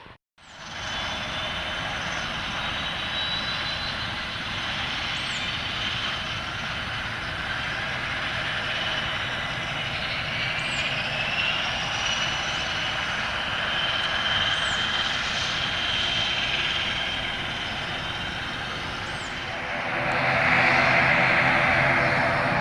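ATR 72-600 turboprop with Pratt & Whitney PW127M engines running: a steady turbine whine and engine noise, with a whine that rises in pitch about halfway through. Near the end the propeller drone comes in louder.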